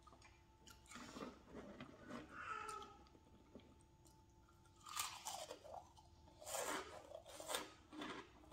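Crunchy snack chips being bitten and chewed close to the microphone, with a run of sharp crunches in the second half.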